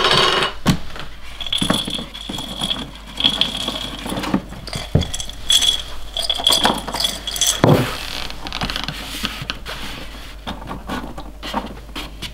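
Folding photo light box being handled and its panels pressed into place: irregular rustles, taps and small clicks.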